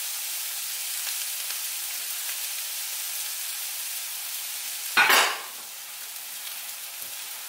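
Pork medallions and pineapple teriyaki glaze sizzling steadily in a skillet, with a short louder sound about five seconds in, after which the sizzle is a little quieter.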